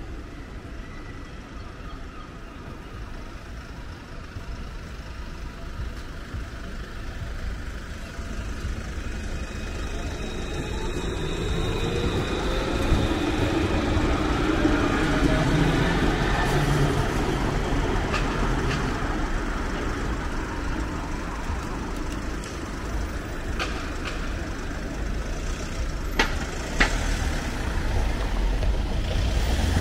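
City road traffic with a steady low rumble. A motor vehicle draws close and passes, loudest about halfway through, its pitch gliding as it goes by. A few sharp clicks come near the end.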